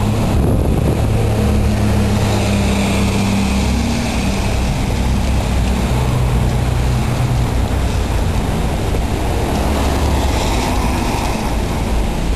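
Steady city street noise: road traffic rumbling, with low engine hum.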